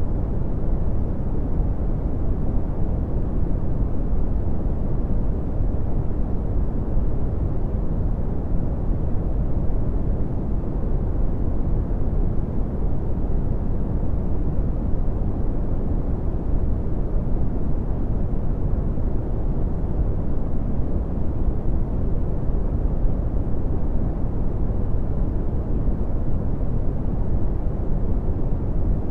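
Red (Brownian) noise: a steady, deep rumbling hiss, strongest in the bass and falling off toward the treble, unchanging throughout.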